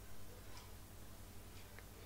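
Sliced onions and whole spices frying quietly in oil, with a faint hiss and a few light ticks as a wooden spatula stirs them in the pot.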